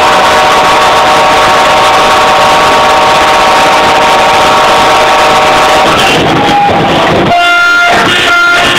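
Several horns blaring together in a loud, sustained chord of steady tones. About six seconds in it breaks into short separate blasts with gaps between them.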